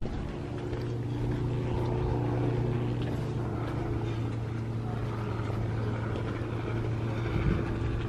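A motor running with a steady low hum.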